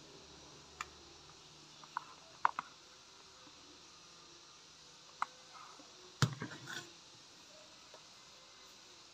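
A few faint, sharp clicks of fingers tapping and handling a smartphone. About six seconds in comes a louder knock with a short clatter after it as the phone is set down on a plastic cutting mat.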